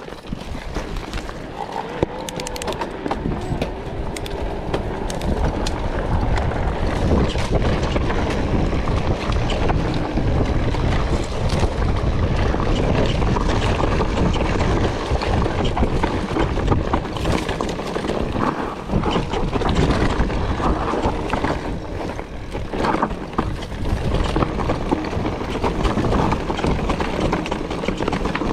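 Specialized Turbo Levo e-mountain bike riding down a rocky dirt singletrack: tyres crunching over loose stones and the bike rattling and knocking over bumps, with wind rushing over the action camera's microphone.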